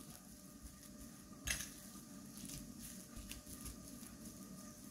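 Fork working seasoned minced meat on a plate: faint, soft squishing, with one sharp clink of the fork against the plate about a second and a half in.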